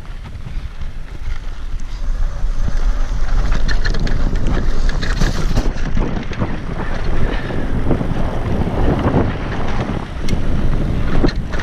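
Wind rumbling on the microphone while riding a mountain bike, over frequent clicks and rattles from the bike, growing louder about two seconds in.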